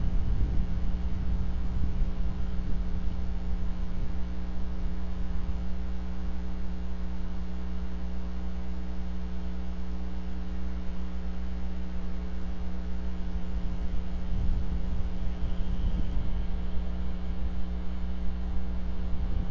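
Steady electrical hum in a live nest camera's audio feed, a low rumble beneath it, unchanging throughout.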